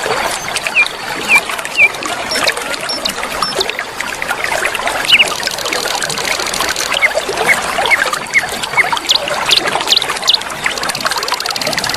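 River water flowing and trickling steadily, with small birds giving short, quick chirps over it. A high, fine buzzing trill comes in around the middle and again near the end.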